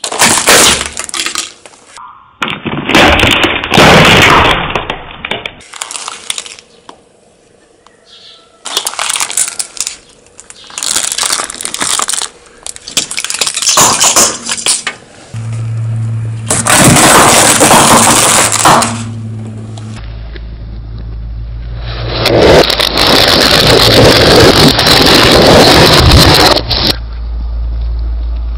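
A car tyre rolling over and crushing a plastic Haribo Happy Mix tub full of gummy candies: the plastic cracks and crunches in a series of sudden loud bursts. In the second half a steady low engine hum runs under further long crushing noises.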